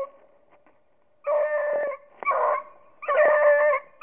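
Beagles baying: three drawn-out, howling bays starting about a second in, the typical voice of hounds running a rabbit's scent trail.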